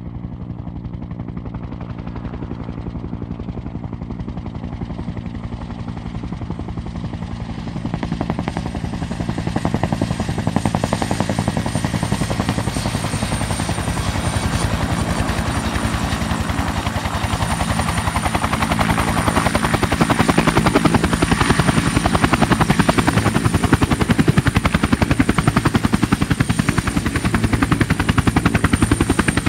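Helicopter in flight: a rapid, even beat of rotor blades over a steady high turbine whine, growing louder.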